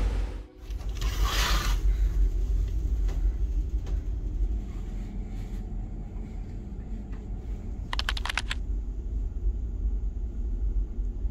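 Steady low rumble of a car ferry's engines heard from inside a passenger cabin. A short hiss comes about a second in, and a quick run of rapid clicks near the end.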